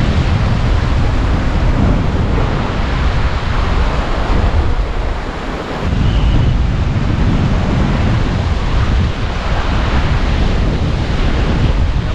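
Loud, steady rush of water pouring through a causeway's sluice gates, mixed with wind buffeting the microphone. The rush eases briefly about halfway through.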